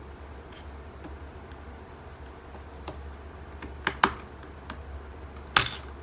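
Small plastic clicks and taps as a screwdriver pries at a multimeter's rotary switch: faint ticks at first, then two sharp clicks about four seconds in and a louder snap near the end.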